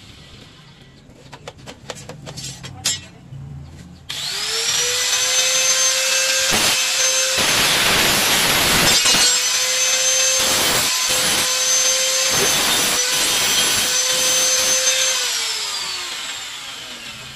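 A few light clicks and taps, then a handheld angle grinder starts about four seconds in and spins up to a steady whine. It grinds through a thin rod in several loud passes, then is switched off and winds down near the end.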